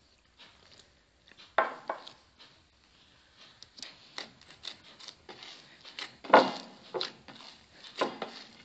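Hands mixing flour, semolina and water into a dough in a glazed earthenware bowl: irregular rubbing and scraping with soft knocks against the bowl, a few of them louder, the loudest a little after the middle.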